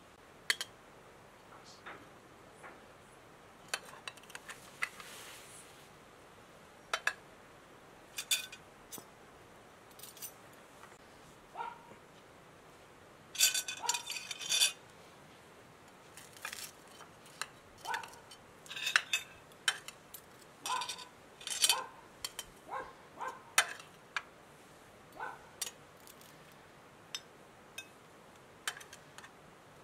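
Metal spoon and fork clinking and scraping against china plates and serving dishes as food is dished out: scattered short clinks, busiest and loudest a little before halfway.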